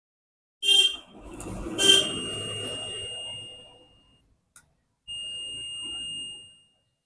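Multimeter continuity buzzer beeping as probes are held on a transistor's leads: two steady high-pitched beeps of a second or two each, after a few probe clicks and some rumble. The beeps mark a short, and the newly fitted transistor is found shorted again.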